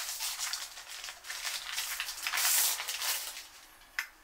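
Plastic wrapping rustling and crinkling as it is pulled off a new mechanical keyboard, loudest a little past halfway. A single sharp click near the end.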